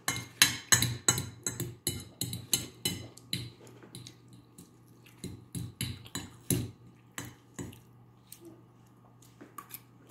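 Metal fork clinking and scraping against a bowl in rapid strokes as macaroni is scooped up, busiest over the first few seconds, then sparser and fading to a few clicks near the end. A faint steady hum sits underneath.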